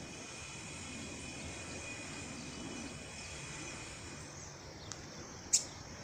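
Outdoor ambience: a steady hiss with faint, thin high insect tones, and a few faint high bird chirps in the second half. About five and a half seconds in there is one sharp click, the loudest sound.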